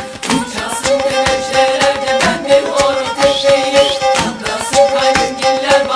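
Background music: a melody of held pitched notes over a quick, busy percussion beat.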